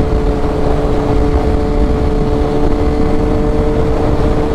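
2001 Suzuki GSX-R1000 inline-four engine running at a steady highway cruising speed, its even drone holding one pitch, under heavy wind rush on the microphone from the riding speed.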